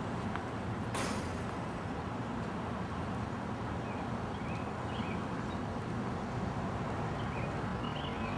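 Steady outdoor background rumble on the camera microphone, with one sharp crack about a second in and a few faint bird chirps later on.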